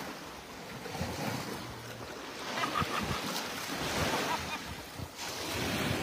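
Small sea waves washing up over sand and breaking in the shallows at the water's edge, a steady rushing wash, with wind buffeting the microphone.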